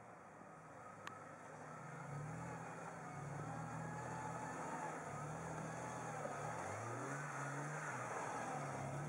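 Jeep Wrangler engine revving as the Jeep crawls through deep mud ruts, its pitch rising and falling with the throttle. It starts faint and gets louder from about two seconds in, with quick up-and-down revs near the end.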